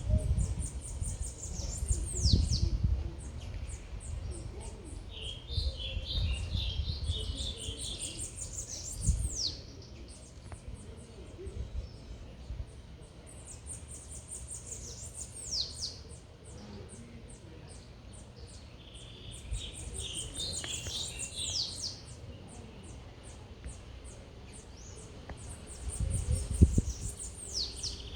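Birds calling: a steady run of short, high chirps, several times a second, broken every few seconds by loud whistles that fall steeply in pitch, with two bouts of busier chattering. A low rumble swells underneath at times.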